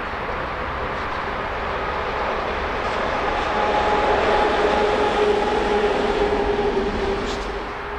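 Red DB Class 232-family 'Ludmilla' diesel locomotive running light past, its engine drone and a steady hum growing louder to a peak about halfway through, then easing off as it goes by.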